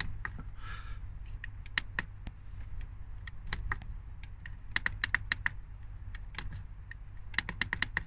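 Push buttons on a Chinese diesel heater's LCD controller clicking as they are pressed over and over to key in the settings code, irregular clicks with quick runs of presses, over a steady low hum.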